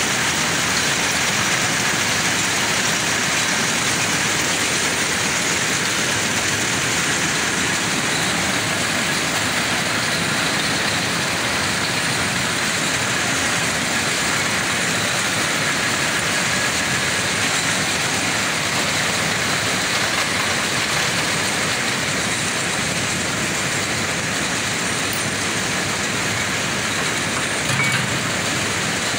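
Jute mill machinery running steadily: the roll-forming machine winding jute sliver into a large roll, with the mill's other processing machines running around it, making a loud, even mechanical noise.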